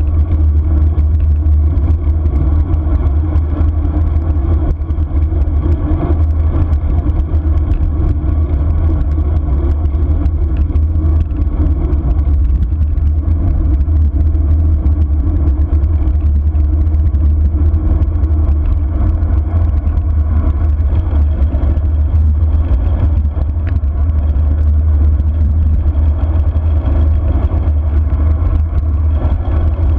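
Steady wind rumble buffeting the camera's microphone during a fast road-bike descent, with a faint hiss of tyres on asphalt.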